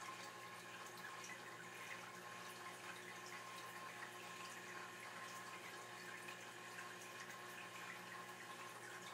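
Faint steady background noise: an even hiss with a steady hum and no distinct events.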